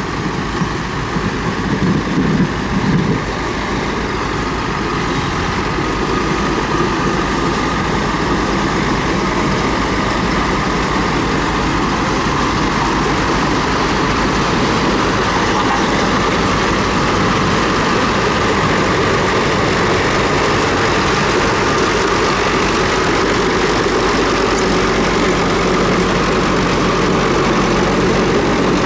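Komatsu D31P bulldozer's diesel engine running steadily, with a brief surge about two seconds in.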